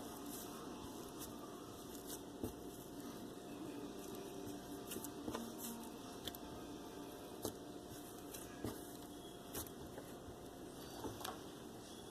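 A soft flour-and-oil no-glue slime being squeezed and poked by hand close to the microphone, with faint squishes and sharp little clicks at irregular intervals.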